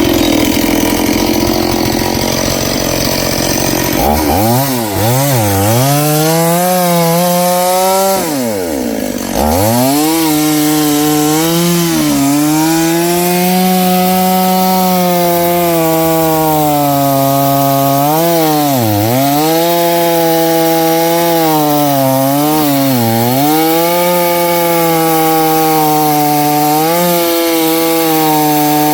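Noker 381 two-stroke chainsaw running at high revs and cutting wood. Its engine pitch dips sharply again and again as the chain loads in the cut, once deeply about eight seconds in, and recovers each time.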